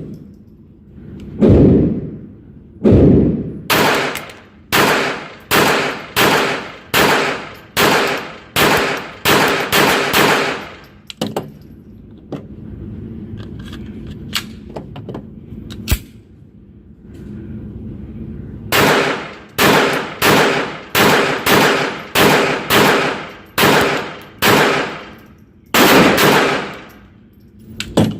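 Walther P22 pistol firing .22 Long Rifle in rapid strings, about two shots a second. The shooting pauses for several seconds in the middle, with a few small clicks, then a second fast string follows.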